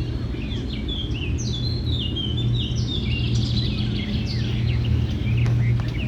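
Small birds chirping and twittering in quick, short, falling notes, over a steady low hum.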